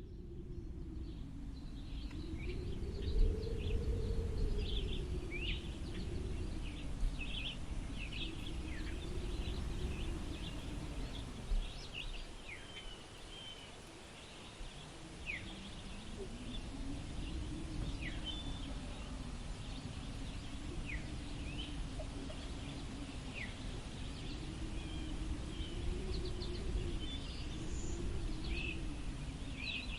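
Wind blowing, with a low rumble and a hollow howl that slowly rises and falls in pitch, and scattered short high bird chirps and calls throughout.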